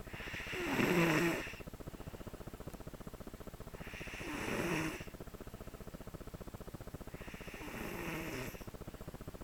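A five-year-old child snoring in deep sleep: three long snores about three and a half seconds apart, the first the loudest.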